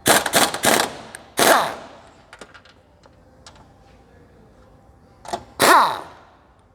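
Impact wrench run in short bursts of rapid hammering, its motor's pitch falling as it spins down after each burst, undoing the three top mount bolts of a shock absorber strut.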